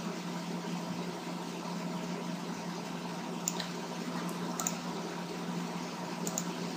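Steady microphone hiss with a low electrical hum, broken by a few faint, short clicks.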